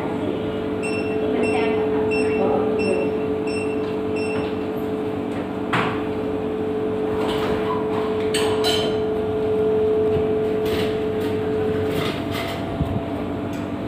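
Shop background with a steady electrical hum. Starting about a second in, a run of short electronic beeps repeats about twice a second for a few seconds. Occasional sharp knocks and clatters follow.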